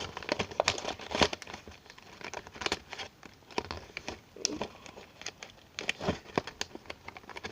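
Irregular small clicks and crinkling of plastic objects being handled close to the microphone.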